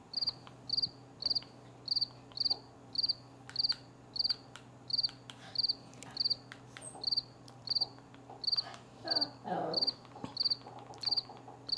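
A cricket chirping steadily, about two short high chirps a second, over a faint low hum and a few soft clicks.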